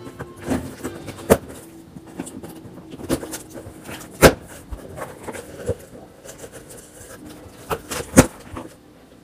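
Scissors cutting open a cardboard package: sharp clicks and knocks, the loudest about four seconds in and two close together near the end, with rustling of the box and tape in between.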